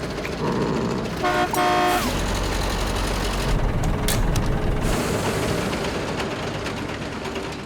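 Cartoon sound effects of a motor vehicle running, with two short horn toots a little over a second in and a deep rumble after them.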